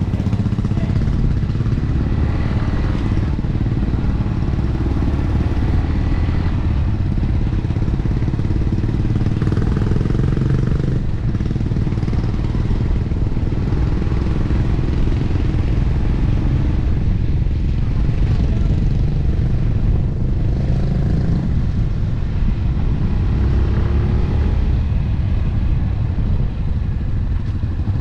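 Single-cylinder engine of an AKT RX1 dual-sport motorcycle running steadily while riding on a paved road.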